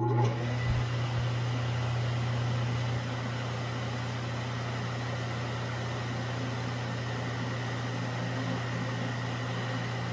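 ILG Model 123 XQ explosion-proof fan's freshly rebuilt electric motor starting and running, with a steady low hum and a faint high whine over the rush of air from the spinning blade. It runs smoothly with no bearing noise on its new bearings. The level steps down slightly about three seconds in.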